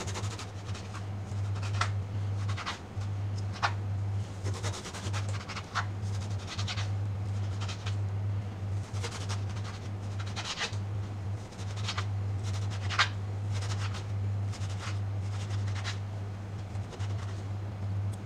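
Small knife chopping shredded kunafa (kataifi) dough on a plastic cutting board: short, irregular scratchy cuts and taps on the board, over a steady low hum.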